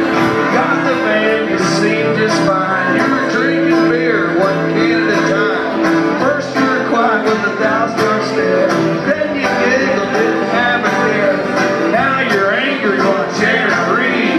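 Live bluegrass-style instrumental: a fiddle bowing a wavering, sliding melody over steadily strummed acoustic guitar.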